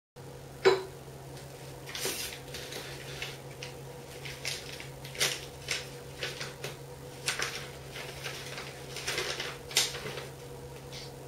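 Sheets of paper rustling in short, irregular bursts as they are handled and leafed through, after one sharp knock about a second in, over a steady low electrical hum.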